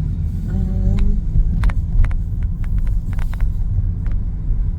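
Car driving, its engine and road noise a steady low rumble heard from inside the cabin, with scattered light clicks and a brief tone about a second in.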